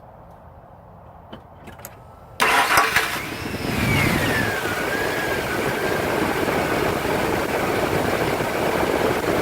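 A 2002 Ford F-150's 4.2L V6 cranks briefly and starts about two and a half seconds in, then runs steadily. A whine falls in pitch just after it catches. It starts without trouble because the crankshaft has just been turned by hand.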